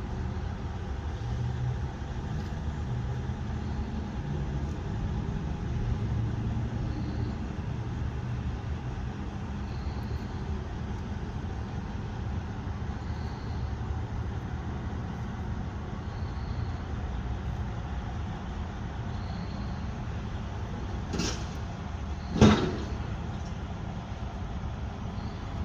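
Steady low rumble of a vehicle engine running, with faint high blips every few seconds and a single sharp knock about 22 seconds in.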